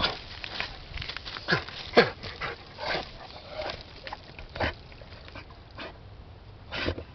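Redbone Bluetick hound giving short, falling whines and yips, with scattered brief noises in between, as it tries to get at something down a hole.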